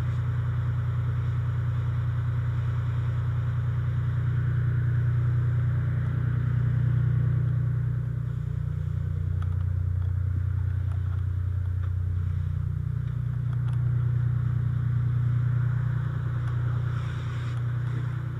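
Fire engine's engine running steadily to drive its water pump, a low drone whose pitch dips for a few seconds midway and then returns.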